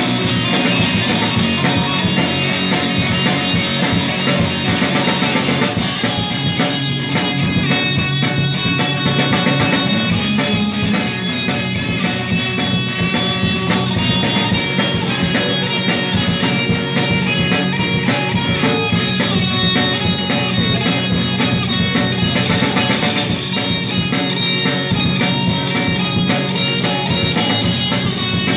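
Live rock band playing, with electric guitar and a drum kit, loud and steady.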